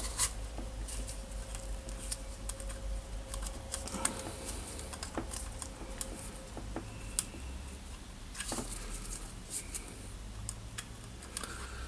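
Sparse light clicks and rubbing of a new rubber-sheathed power cord being pulled through the strain relief and plastic rear housing of a Bosch GWS 1400 angle grinder.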